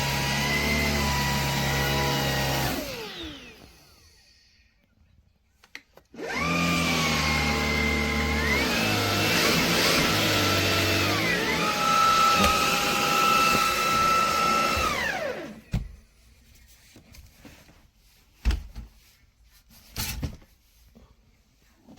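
Vax HomePro Plus cordless stick vacuum's motor running, then winding down about three seconds in. It starts again a few seconds later, its pitch stepping up and down a couple of times. It winds down once more, followed by a few light knocks.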